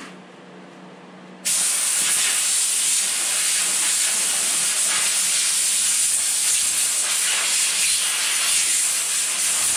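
Compressed-air blow gun hissing steadily, switched on about a second and a half in, blowing dirt and sawdust off a chainsaw under its removed side cover.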